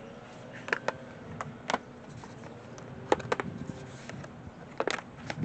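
Scattered light clicks and taps from a freshly cut length of black plastic landscape edging being handled and knocked against a workbench. There are about half a dozen sharp ticks in all, some of them in quick pairs.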